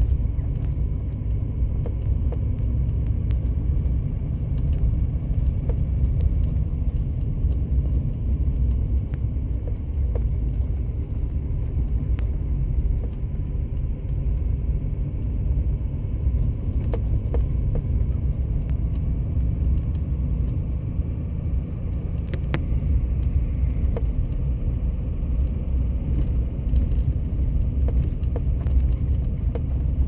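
Steady low rumble of a car driving slowly on a snow-packed road, heard from inside the cabin, with occasional faint clicks.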